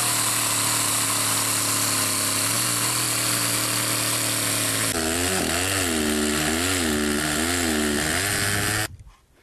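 Chainsaw running steadily as it cuts down into thick lake ice. About halfway through, its pitch starts to rise and fall in slow waves, and the sound cuts off sharply near the end.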